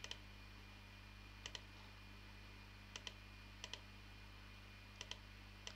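Computer mouse button clicking about six times, most clicks a quick press-and-release pair. A faint steady electrical hum lies underneath.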